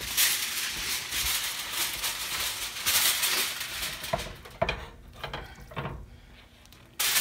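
Sheet of aluminium foil crinkling and rustling as it is handled and spread out, for about the first three and a half seconds. It then quietens to a few soft knocks of handling.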